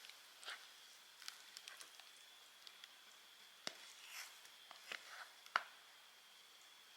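Quiet, scattered light clicks and taps, a dozen or so, the sharpest about four and five and a half seconds in, over a faint steady high-pitched tone.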